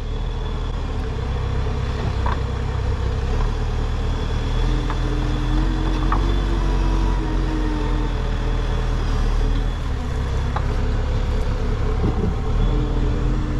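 Diesel engine of a heavy farm machine running steadily under load while it digs out a buried tree root, with a few faint knocks.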